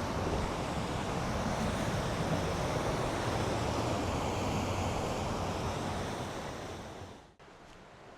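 Fast-flowing river water rushing steadily, fading away near the end and then cutting off.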